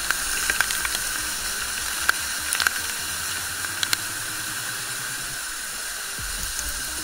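Waterfall pouring into a plunge pool: a steady rushing hiss, with a few sharp ticks in the first four seconds.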